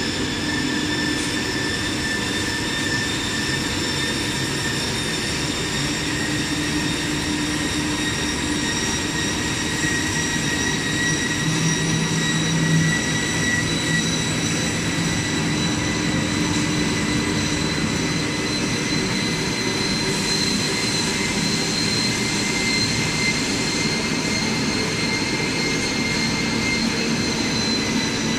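Chanzen slitting rewinding machine running steadily. A high whine with several overtones climbs slowly in pitch and eases off slightly near the end, over a rough mechanical hum.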